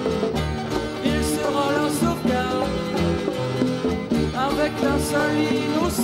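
Instrumental passage of a 1970s French prog-folk rock song: guitars playing over bass guitar and drums, with cymbal accents and some bending lead notes.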